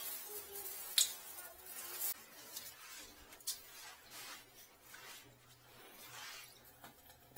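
Small hard chips of debris picked off a tile floor and dropped into a plastic bag: light rustling of the bag with a few sharp clicks, the loudest about a second in. Later comes softer scrubbing noise as the wet floor tiles are wiped.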